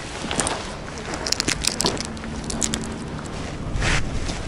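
Plastic bag crinkling and rustling as fingers handle soft fishing bait, a string of sharp crackles, with a short rush of noise near the end.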